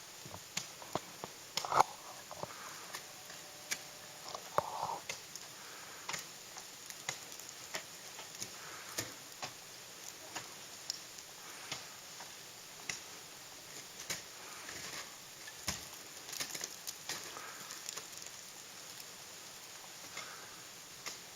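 Ice axes and crampons striking a frozen waterfall: irregular sharp ticks and knocks, roughly one a second, over a faint steady hiss.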